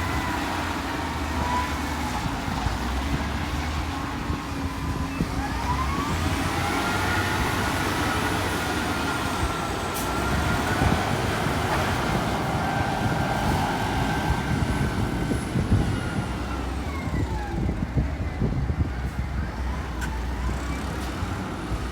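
Bulldozer's diesel engine running steadily under load, with a high whine that slowly rises and falls over several seconds.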